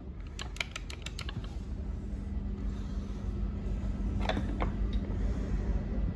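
Light clicks and rattles from handling a Milwaukee cordless grease gun and its hose: a quick run of clicks about half a second in, then two more about four seconds in, over a low steady hum.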